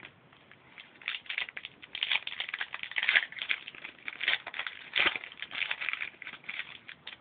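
A trading-card pack wrapper being torn open and crinkled in the hands: a dense run of crackling rustles with many sharp crackles that begins about a second in.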